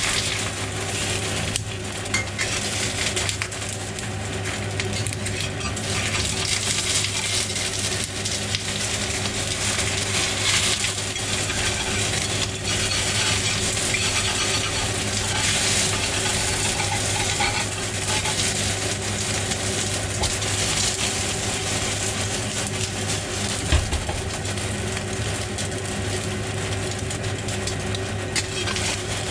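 An egg frying in oil in a 5-ply stainless steel wok, sizzling steadily, with a metal wok spatula scraping and tapping against the pan. A steady low hum runs underneath.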